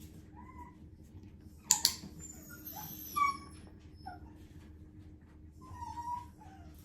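Havanese puppy whimpering in short, high whines several times, the last one sliding down in pitch near the end. A single sharp click comes a little under two seconds in and is the loudest sound.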